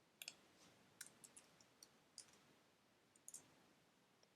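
Faint, irregular clicks from a computer mouse and keyboard, some in quick pairs and a short run about a second in.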